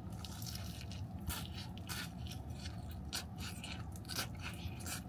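Biting into and chewing crisp-crusted fried chicken, a run of short crunches and crackles close to the mouth.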